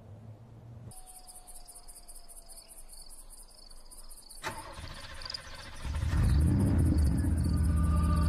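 Insects chirring in a rapid, even high-pitched pulse, like crickets or cicadas on a summer day. A single click comes just past the middle, and a deep rumble swells up and turns loud in the last two seconds.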